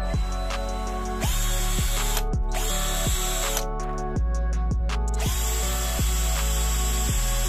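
Parkside PBSA 12 E4 12 V cordless drill-driver running twice, for about two seconds starting about a second in and again from about five seconds on, with the ratcheting of its torque clutch slipping as the clutch is tested. Background music with a steady beat plays underneath.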